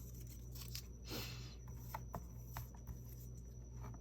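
Faint paper handling during craft work: a brief paper rustle about a second in and a few light clicks, over a low steady hum.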